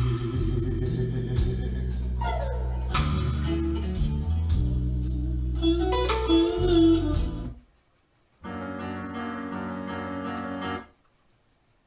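Recorded music played on a hi-fi system with Rogers LS7t speakers and a Yamaha subwoofer: a band track with heavy bass and cymbal hits stops about seven and a half seconds in, and after a short gap a held keyboard chord sounds for about two and a half seconds, then cuts off.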